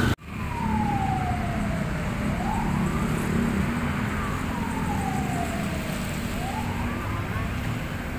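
A wailing siren, its pitch sliding slowly down and then quickly back up roughly every four seconds, over a steady low hum.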